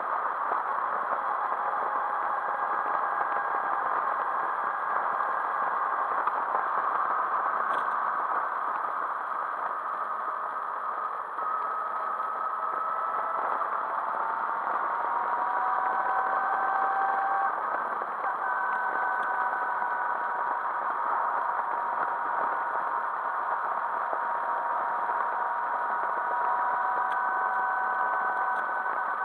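Motorcycle riding at speed: steady engine and wind noise, with the engine note shifting in pitch a few times about halfway through.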